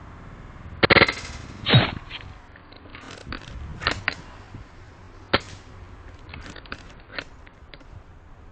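Airsoft guns firing irregular single shots as sharp snaps and pops, loudest about a second in, with fainter shots and clicks scattered after.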